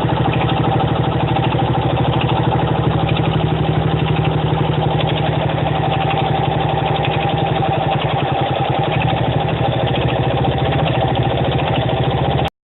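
1975 Honda XL125K's single-cylinder four-stroke engine running steadily, with a regular knock that a newly installed cam chain has not cured.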